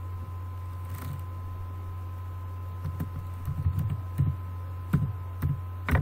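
Computer keyboard keystrokes: a few scattered clicks, then an irregular run of taps in the second half, over a steady low electrical hum and a faint high whine.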